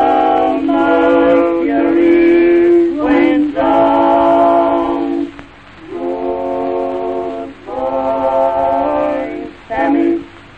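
Voices singing a string of long held notes, each about one to two seconds, with short breaks between them and a brief last note near the end.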